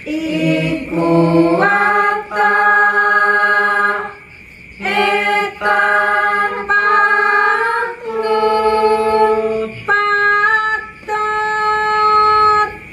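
A small group singing Javanese tembang macapat Pangkur unaccompanied, led by a woman's voice: long held notes in about four phrases, with short breaks between them.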